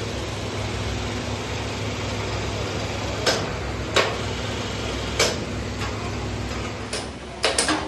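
Steady low drone of a rotational-moulding machine turning a plastic water tank mould over gas burners, with a few sharp knocks from the rig a few seconds in and a quick cluster of knocks near the end.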